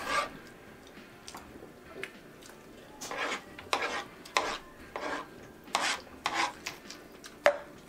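Forks scraping and clinking against metal sheet trays as food is scooped up: a run of short, irregular scrapes, with one sharper clink near the end.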